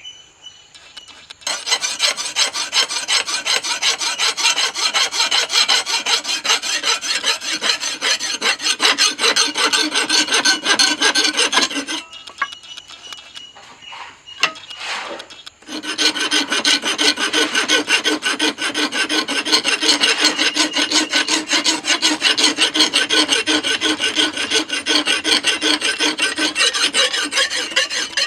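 Rapid, regular scraping strokes of an abrasive being worked against a knife blade. The strokes stop about twelve seconds in and start again a few seconds later.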